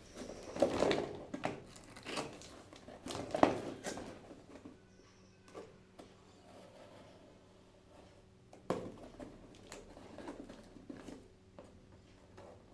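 A cardboard box is being slit open with a Swiss Army knife blade: irregular scraping and crinkling of tape and cardboard, with sharp knocks about three and a half seconds and nearly nine seconds in.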